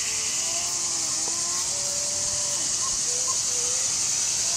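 G-scale garden train with its track-cleaner car running along the track: a steady high hiss with faint, short wavering squeals over it.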